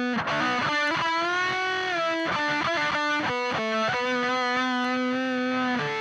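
Reverend Sensei electric guitar played through the SAE Effects Beldam germanium treble booster and silicon fuzz pedal into a Frenzel Bassman amp, distorted. A run of single notes with an upward bend, then a long sustained note held until near the end.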